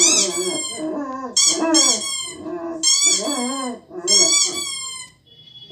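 A squeaky toy squeaking in about four bursts, roughly a second apart, played through a TV's speaker. Under it a German shepherd howls and whines along with wavering calls. Both stop briefly near the end.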